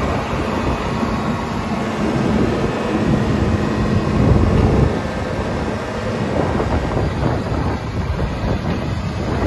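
Cat M318 wheeled excavator's diesel engine idling steadily, with wind buffeting the microphone.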